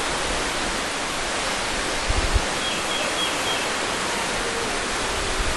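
Steady rush of a 90-foot waterfall falling over limestone cliffs, an even, unbroken hiss with no pauses.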